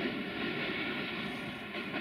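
Rumble of a passenger train's coaches running on the rails, slowly fading as the train moves away round the curve.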